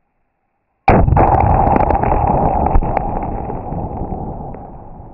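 Tannerite explosion among a stack of pumpkins: one sudden loud blast about a second in, followed by a long rumble that fades away over the next few seconds, with a few small ticks from falling debris.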